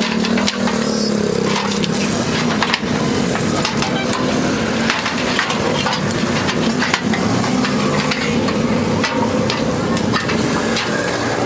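Dense, irregular crackling and light knocks from metalwork on a rusted car A-pillar, over a low hum.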